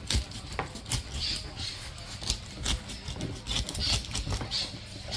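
A large kitchen knife pushed down through the bony armour plates of a vieja del agua, a suckermouth armored catfish, on a wooden cutting board: an irregular run of crackling clicks and crunches as the plates give way.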